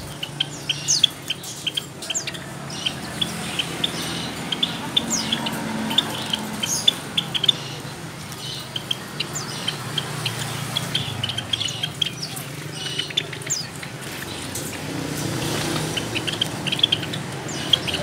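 A flock of caged Java sparrows calling, a busy string of short, sharp chirps in quick irregular succession with an occasional higher falling note, over a low steady hum.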